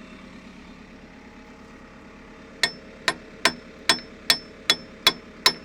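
Hammer striking the steel pin of a JCB backhoe's cylinder to drive it into its bore: a regular run of sharp, ringing metal blows, about two and a half a second, beginning about halfway through. Under them is a low steady engine hum.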